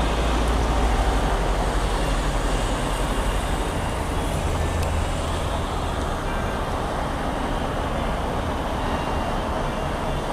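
Road traffic: cars driving along a snow-covered road, a steady rushing noise with a deep low rumble that eases after about four seconds.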